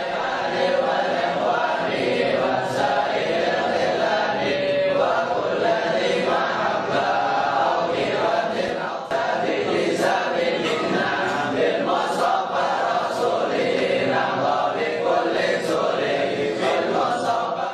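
A crowd of men's voices chanting together in unison, a continuous devotional group chant.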